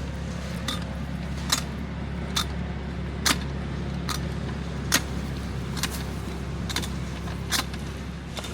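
Come-along winch being cranked to tension a pull line, its ratchet clicking about once a second in a steady rhythm. An engine idles steadily underneath.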